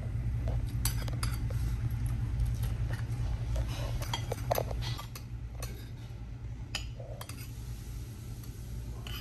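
Cutlery and dishes clinking now and then while eating, over a steady low hum.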